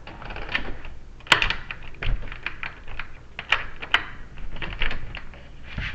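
Irregular clicks and light knocks of door lock hardware being handled and fitted, the sharpest about a second and a half in.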